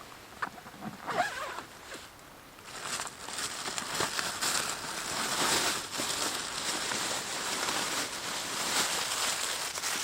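Ongoing rustling and crinkling, with many small ticks, as camping gear or fabric is handled. It starts after a few scattered clicks in the first two seconds.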